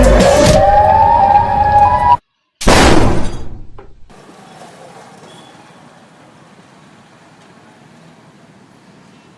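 A loud siren-like wail of rising, gliding tones that cuts off after about two seconds. After a brief gap comes a loud crash that fades over about a second, then only faint hiss.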